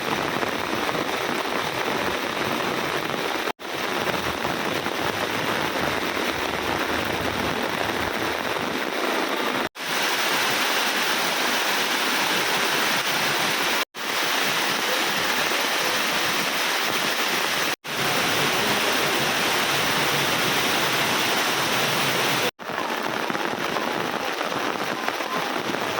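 Heavy rain pouring down in a steady, dense hiss, broken by a few brief gaps of silence a few seconds apart.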